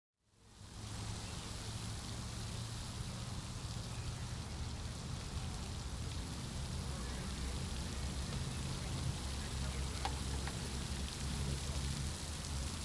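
Steady hiss and splash of a floating fountain's water jet falling back onto the lake surface, fading in over the first second, with a low rumble underneath.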